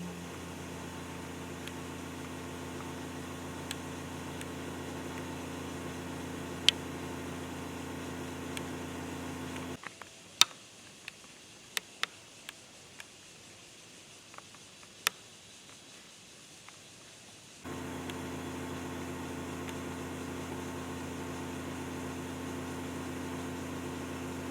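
A steady machine-like hum. It cuts out abruptly about ten seconds in and comes back just as abruptly about seven seconds later. A few sharp clicks are scattered through it.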